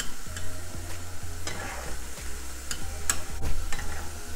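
Gram-flour-battered cockle meat sizzling in hot oil in a frying pan, fried crisp. A metal spoon clinks and scrapes against the pan a few times as the pieces are lifted out.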